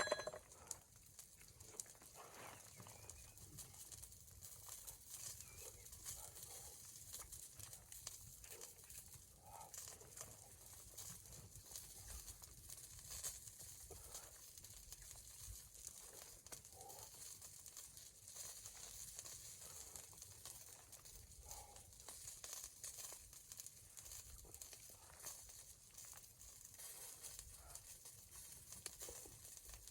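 Near silence: faint hiss with a few soft scattered crackles and rustles.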